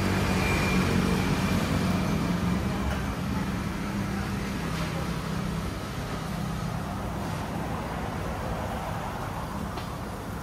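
Steady road-traffic noise with the low hum of a vehicle engine, loudest in the first few seconds and easing off gradually.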